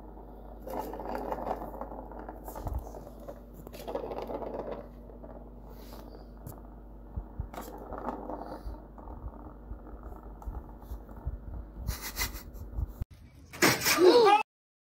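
A cat pawing at a plastic circular ball-track toy, the ball rattling and tapping in its track, with faint muffled voices in the background. Near the end, a brief louder voice with a wavering pitch.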